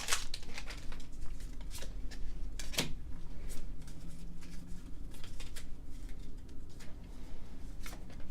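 Pokémon trading cards and a foil booster-pack wrapper being handled: scattered soft rustles and clicks, a few sharper ones in the first three seconds.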